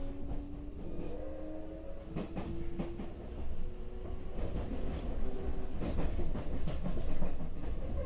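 Kintetsu 6407-series electric train heard from inside the passenger car as it picks up speed: the traction motors' whine rises slowly in pitch and fades out about three-quarters of the way through. Under it the wheels rumble, with scattered clacks over rail joints, growing louder toward the end.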